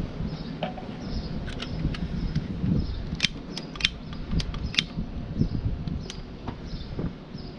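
Wind rumbling on the microphone, with a run of about five sharp clicks a little past the middle from a long-nosed wand lighter being clicked to light methylated spirits in a folding metal camping stove.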